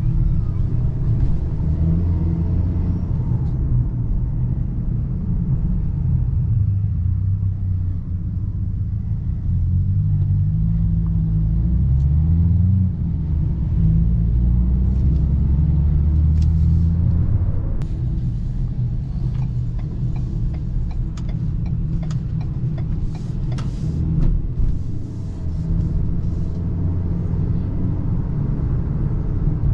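Ford Maverick's 2.0-litre EcoBoost turbocharged four-cylinder and road noise, a steady low rumble. The engine note climbs in pitch as the truck accelerates about ten seconds in, breaks off briefly as the automatic shifts, holds a strong note and eases off a few seconds later. Short clicks come and go in the second half.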